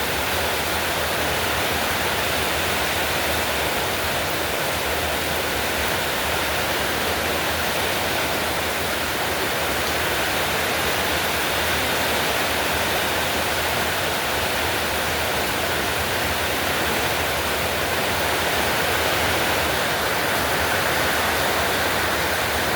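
Heavy rain pouring steadily in a rainstorm, an even hiss that does not let up.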